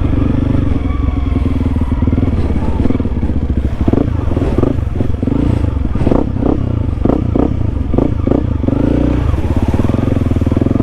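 Honda CRF300L single-cylinder engine running at a steady, low pace on a muddy trail. From about four seconds in there is a run of short clattering knocks over the engine.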